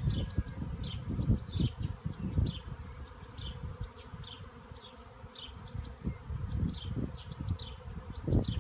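A honey bee swarm buzzing as the bees fly around their cluster in a cherry tree, with irregular low bursts as the loudest part. Over it, a high descending chirp repeats about every half second.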